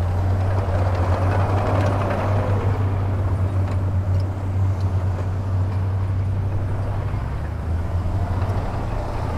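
Diesel engine of heavy earthmoving machinery running steadily, a low drone with a fainter whine that dips in pitch about two seconds in.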